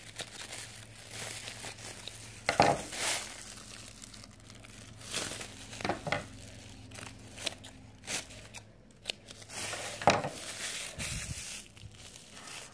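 A thin plastic shopping bag being crumpled and handled by hand, crinkling and rustling irregularly, with louder crackles several times.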